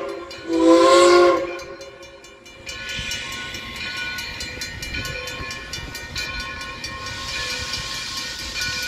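Steam whistle of 2-8-0 locomotive No. 60 sounding one blast about a second in, the second of two blasts as the train departs. After it the locomotive starts working, with faint steady tones and regular strokes and a hiss that grows near the end.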